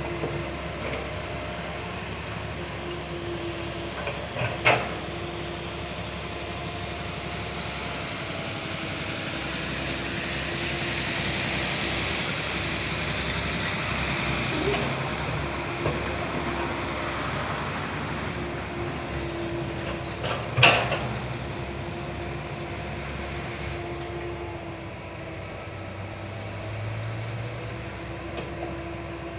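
Komatsu PC160 hydraulic excavator's diesel engine running steadily, with a rushing hiss that swells in the middle. Two sharp knocks, about five seconds in and again about twenty seconds in, the second the louder.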